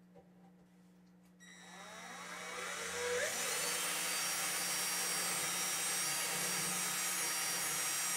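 Power drill with a 23/64-inch bit boring into the cajon's wooden top, widening an undersized hole. It starts about a second and a half in, builds up over the next two seconds, then runs steadily.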